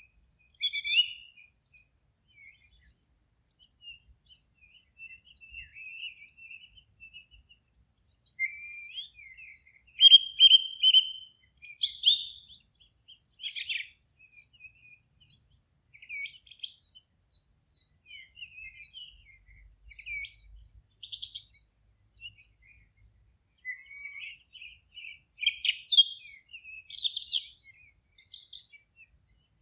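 Forest songbirds singing: a string of high chirps, short trills and whistled phrases, one after another with brief quiet gaps between them.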